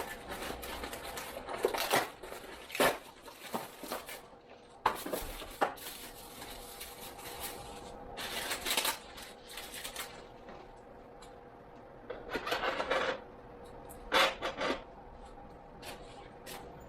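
Bicycle seat and seat post being fitted to the frame: irregular clicks and knocks with several short stretches of scraping and rubbing as the post is worked into the seat tube and the clamp is done up.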